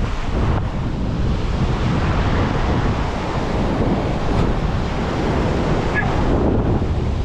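Strong wind buffeting the microphone over heavy surf breaking on the shore: a loud, steady rushing rumble with no letup.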